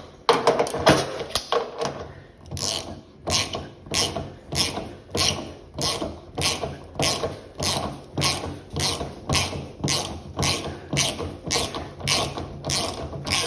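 Ratchet wrench clicking in a steady rhythm, about two strokes a second, as the washer's drum shipping bolts are backed out; the first couple of seconds are more irregular.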